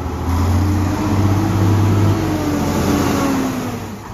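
Bus engine accelerating as the bus pulls away. It swells loud a moment in, its pitch rising then falling, and dies away near the end.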